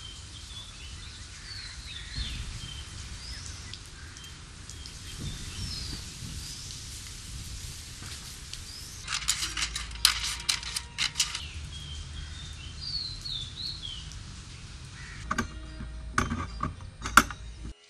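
Birds calling over a low steady background rumble. About halfway, a quick flurry of light metallic clinks from the hanging metal pieces of a wire mobile sculpture. Near the end, several sharp metal taps with a brief ringing tone as small metal parts are worked by hand on a wooden block.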